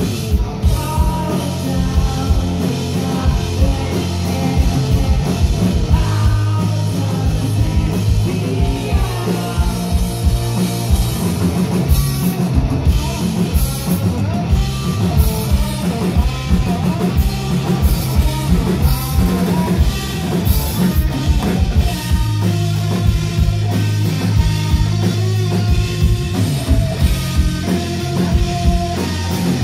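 A three-piece rock band playing live: electric guitar, bass guitar and drum kit keeping a steady beat, with singing over it.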